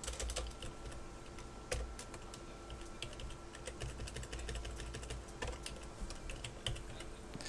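Typing on a computer keyboard: irregular runs of quick key clicks, fairly quiet.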